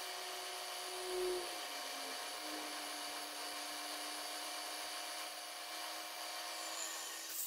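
Milling machine spindle running steadily with an end mill plunge-cutting into a metal part through a pilot hole, a steady whine over the cutting noise. The whine's pitch dips slightly about two seconds in, then holds steady.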